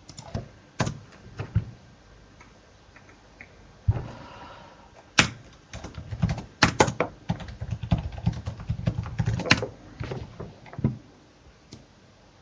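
Typing on a computer keyboard with mouse clicks: scattered single clicks at first, then a quick run of keystrokes in the middle that tails off near the end.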